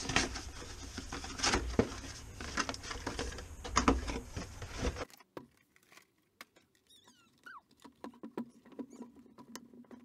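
Cardboard tyre box being handled and opened, with a folded mountain-bike tyre pulled from it: close rustling, scraping and tapping for about five seconds. Then the sound drops abruptly to low background with scattered faint clicks and a couple of brief squeaks.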